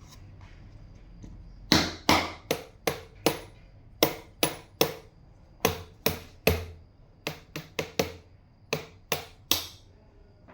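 A jug being knocked or struck by hand about twenty times, in quick runs of three to seven knocks with short pauses between them. The jug has just been filled, so the knocks show how a full vessel sounds.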